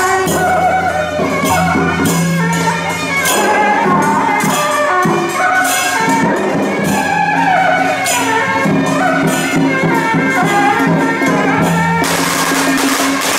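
Loud temple-procession music: wind instruments playing a wavering melody over drums and percussion, with the sound turning denser and hissier near the end.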